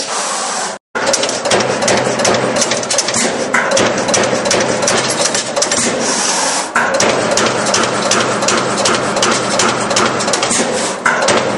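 Mechanical CNC turret punch press punching thin stainless steel sheet at high speed: a rapid, even run of sharp punching strokes over a steady machine hum, with a brief break about a second in.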